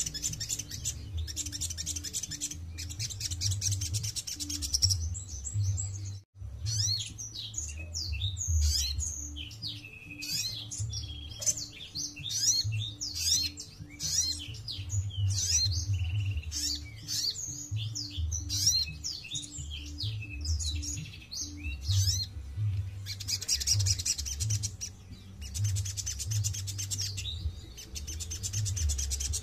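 Caged sunbird singing: fast, high buzzy trills at the start and again near the end, with a stretch of varied chirps and quick slurred notes in between.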